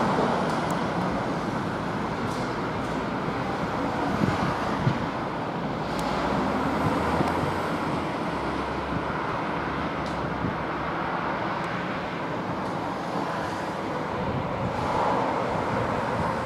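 Steady road traffic noise from cars passing on the street below, with a slight swell near the end.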